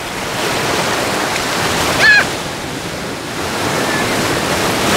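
Surf breaking and washing in over the shallows at the water's edge, a steady rushing that swells and eases. About two seconds in, a short high cry rises briefly above the surf.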